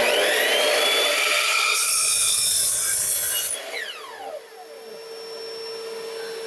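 Electric miter saw with a Diablo blade starting up with a rising whine and cutting through a wooden board at a 30-degree bevel. About three and a half seconds in the trigger is released and the blade spins down with a falling whine.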